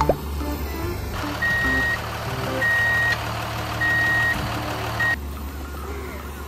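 Truck reversing alarm beeping four times, a little over a second apart, over truck engine noise; the truck sound starts about a second in and cuts off suddenly near the end.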